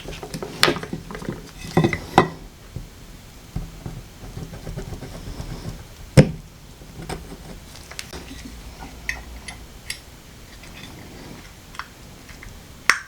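Scattered sharp clicks and taps of small plastic phone parts and tools being handled on a work surface, the loudest about two seconds in, around six seconds in and near the end.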